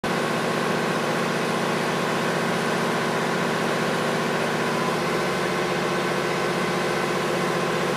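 Pressure washer's combustion engine running loud and steady, an even drone with no change in speed.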